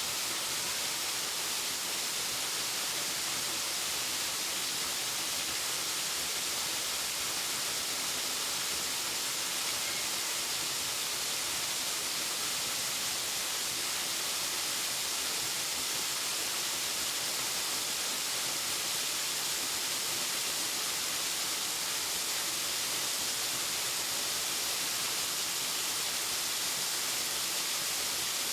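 Waterfall: a steady, unbroken rush of falling water, hissy and even, with no change in level.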